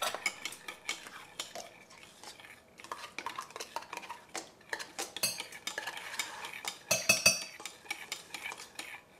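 Spoons stirring and scraping in mixing bowls as Cool Whip and key lime yogurt are mixed and gelatin is stirred to dissolve, with a steady patter of utensil-on-bowl clicks. Brief ringing clinks stand out about five and seven seconds in.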